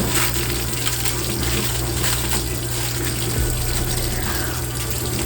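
Steady rushing background noise with a constant low hum, unchanging throughout.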